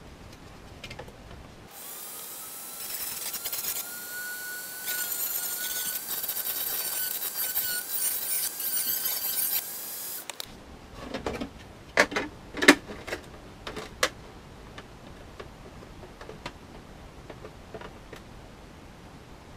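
Dremel rotary tool on a flexible shaft spinning up and running at high speed for about eight seconds, with a slight rise in pitch as it starts, while it trims the plastic ear cap of a stormtrooper helmet; it then stops abruptly. Several sharp knocks and clatters follow as the tool and helmet are handled.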